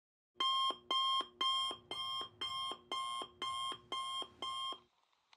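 Electronic alarm-style beeping: nine evenly spaced beeps, about two a second, each followed by a short lower blip, stopping near the end.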